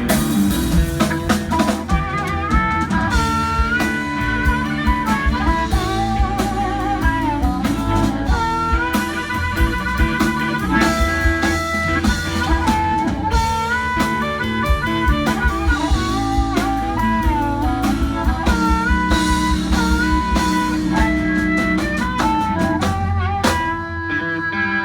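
Live electric blues band playing an instrumental break: drum kit, bass and guitar with a lead solo line that bends between notes.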